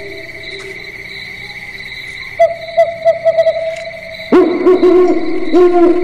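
Owl hooting in a quick repeated series over a steady high tone, quieter at first and loud from about four seconds in.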